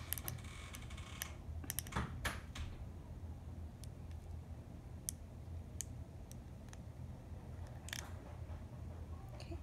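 Scattered faint clicks and ticks of fingers handling and bending a thin metal eyeglass frame at the bridge, over a steady low hum.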